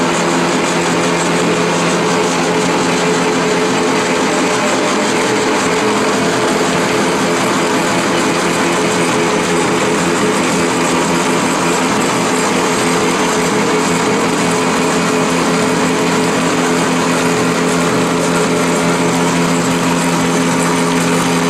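EPE foam fruit net extrusion line running: its electric drive motors and extruder make a steady machine hum, with a few held tones over a broad hiss.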